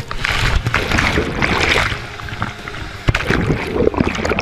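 Whitewater churning around a kayaker's helmet-mounted camera as the kayak runs a steep cascade, with the camera going under the water. There is a sharp knock a little after three seconds in.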